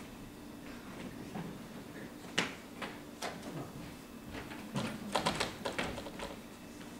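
Footsteps and scattered knocks on a stage floor as an actor moves about the set, with a quick run of sharp taps about five seconds in.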